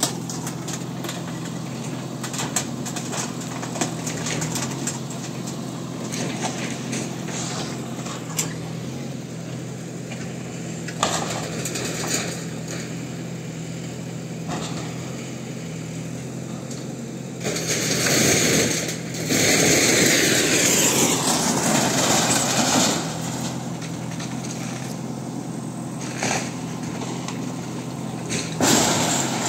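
Backhoe loader's diesel engine running steadily, with scattered knocks and clatter as it tears down a timber-and-tin-roofed house. A louder noisy stretch of several seconds comes about two-thirds of the way through.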